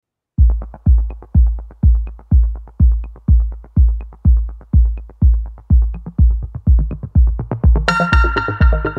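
Electronic background music with a heavy, steady kick drum beating about twice a second; a bright synth chord comes in near the end.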